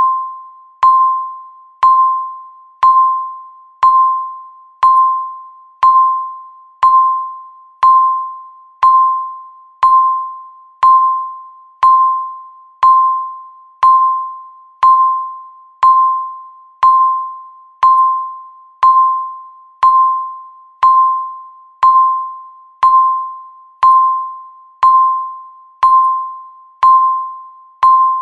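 Digital countdown timer beeping once a second: a single mid-pitched electronic beep that starts sharply and fades away before the next.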